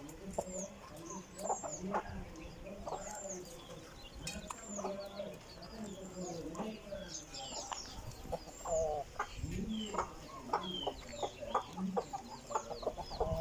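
Aseel chickens clucking on and off, with many short, high chirps repeating throughout.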